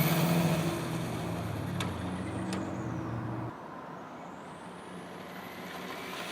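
Brushless RC car motor whining as the HPI Sprint 2 Flux drives away, the whine falling and fading, then rising again as it comes back toward the end. A steady low hum underneath stops suddenly about halfway through, with two sharp clicks a little before that.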